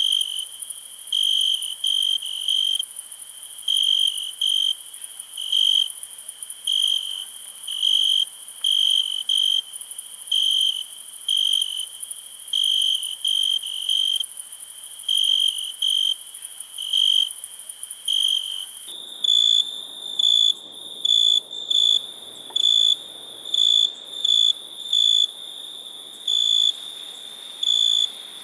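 Crickets chirping: short chirps repeated unevenly about once or twice a second, over a steady high-pitched insect trill. About two-thirds of the way in the recording changes, and the chirps come slightly higher in pitch over a soft background hiss.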